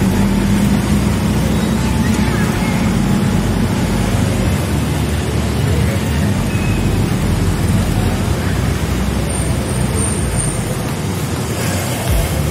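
Steady road-traffic noise of motorcycles and cars moving along a busy street, with a heavy low rumble and no pauses.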